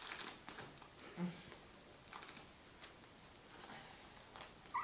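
Faint, scattered scratching and rustling as dachshund puppies clamber over a person lying on the floor. A short, high puppy whimper comes right at the end.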